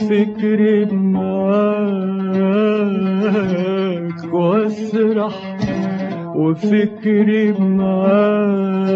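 Arabic song in maqam Kurd: a male voice holding long, wavering melismatic notes over oud accompaniment.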